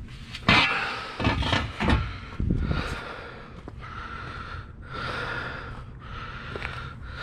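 Scrap metal clanking and thudding as it is handled, a few loud knocks in the first couple of seconds, then heavy breathing rising and falling about once a second.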